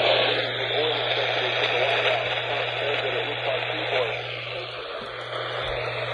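Radio receiver static: a dense, steady hiss with a low steady hum beneath it.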